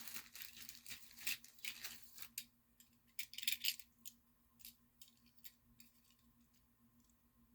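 Plastic bag crinkling and rustling in bursts as diecast toy cars are sorted through, then thinning to scattered light clicks of the cars being handled. A faint steady tone and low hum run underneath.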